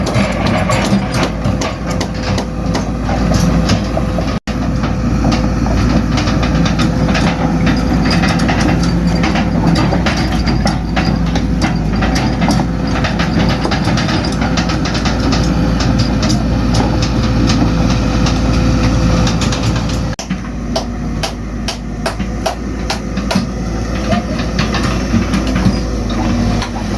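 Excavator diesel engine running under load while the toothed bucket scrapes and knocks against the road surface, with dense irregular clattering of stone and hard ground.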